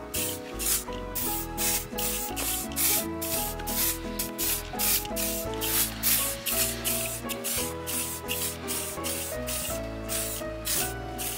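Quick rubbing strokes on a leather boot, about two or three a second, over background music.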